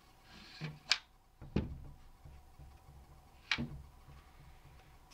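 Wooden pine plate rack being folded shut by hand, its slatted tray knocking against the frame: three sharp knocks, about a second in, a moment later, and again near four seconds in, with a brief rubbing of wood before the first.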